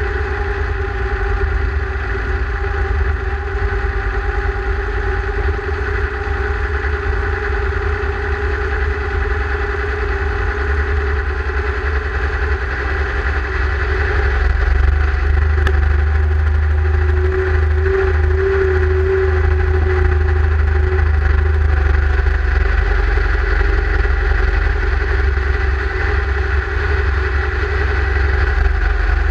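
Deutz-Fahr Agrosun tractor's diesel engine running steadily while the tractor drives across a field, growing somewhat louder about halfway through.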